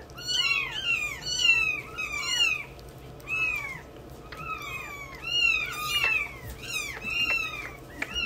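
Newborn kittens mewing over and over: thin, high cries that rise and fall in pitch, one or two a second, with two voices overlapping now and then.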